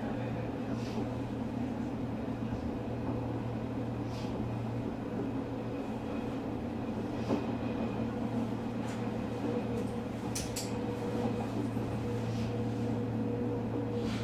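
Odakyu 3000 series electric train with Mitsubishi IGBT VVVF control and fully enclosed MB-5123 traction motors, running between stations. A steady low rumble with a constant mid-pitched tone, and a few faint ticks now and then.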